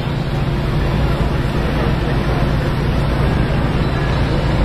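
Mobile crane's engine running steadily: a low, even hum under a constant wash of outdoor noise.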